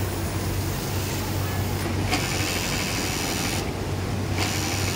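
Industrial sewing machines running on a garment factory floor: a steady low hum, with a high whirring hiss that cuts in and out a few times.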